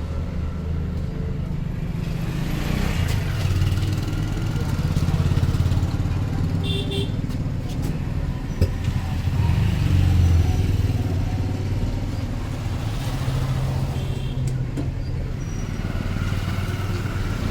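Street traffic, with motorcycle and other vehicle engines running and passing in a continuous low rumble, and voices in the background. One sharp click stands out about eight and a half seconds in.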